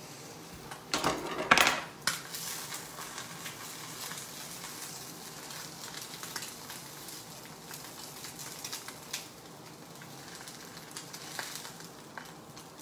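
A frying pan clattering loudly about a second in as it is taken off the hob, then eggs sizzling in the pan while a spatula scrapes and taps as it lifts them out.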